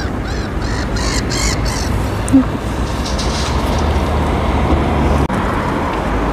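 Black-headed gulls calling, a quick run of harsh cries in the first couple of seconds, over a steady low rumble of street traffic.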